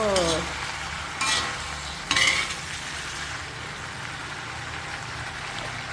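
Chicken curry with radish and tomato frying in a pan with a steady sizzle. It is stirred with a spoon that scrapes the pan three times in the first couple of seconds.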